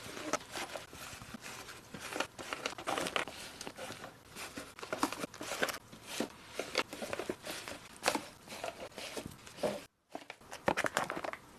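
Gift-box packaging materials crinkling and rustling, with irregular light clicks and taps as a jewelry gift is packed. There is a brief break about ten seconds in.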